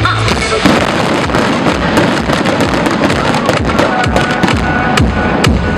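Fireworks crackling: a dense, rapid crackle of many sharp pops and cracks from the bursting shells, taking over about half a second in. The show's music soundtrack plays underneath.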